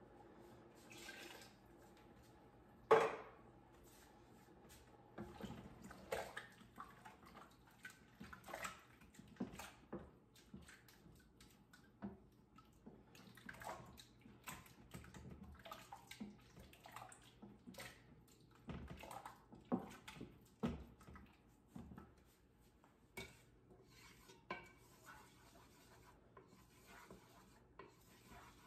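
Cooking pots and utensils being handled: scattered clinks and knocks against the pots, with one sharper knock about three seconds in.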